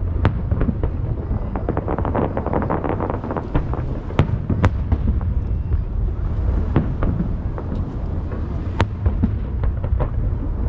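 Aerial fireworks bursting over the sea: sharp bangs every second or so over a continuous low rumble of echoing reports. A dense run of crackling comes about two seconds in.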